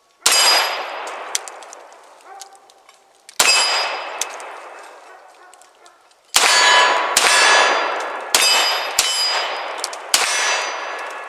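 CZ P01 compact 9mm pistol firing seven shots: the first three about three seconds apart, then four in quicker succession. Each shot has a long fading echo with a metallic ring in it.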